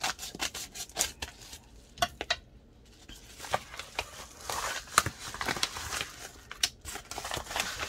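A plastic mailer bag being handled and opened: crinkling and rustling, with a run of short sharp clicks in the first few seconds and a louder snap about five seconds in.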